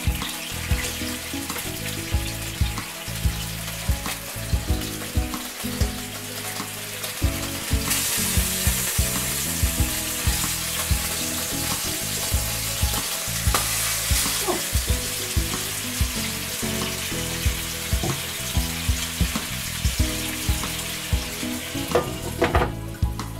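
Water sizzling and bubbling in a hot pan on the hob. The hiss grows louder about eight seconds in.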